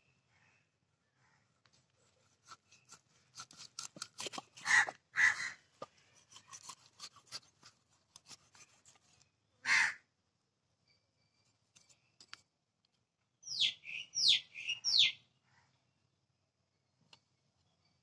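A large curved knife taps and scrapes as it cuts fish on a wooden chopping block, while a crow caws loudly twice about five seconds in and once more near ten seconds. Near the end a bird gives a quick run of four sharp, falling calls.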